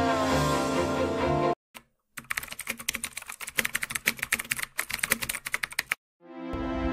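Background music plays and cuts off about a second and a half in. After a short silence comes a fast, uneven run of computer-keyboard keystroke clicks, a typing sound effect, which stops about a second before the end. Music starts again just before the end.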